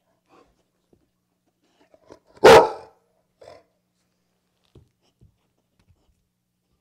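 A dog barks once, loud and short, about two and a half seconds in, with a few faint softer sounds around it.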